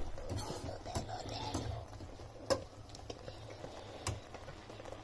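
A metal utensil stirring noodles in an aluminium pan, clicking against the pan a few times in sharp, irregular knocks over a low steady hum.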